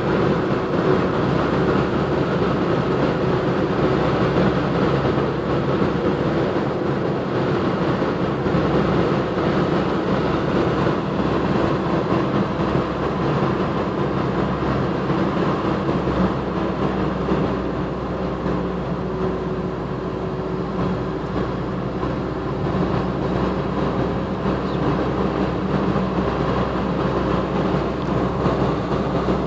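Steady road noise inside a moving Mercedes-Benz car's cabin at highway speed: engine hum mixed with tyre and wind noise.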